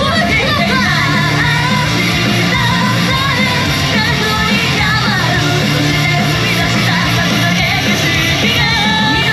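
Live J-pop idol group song: several voices singing over a loud, rock-style backing track with electric guitar and a steady beat.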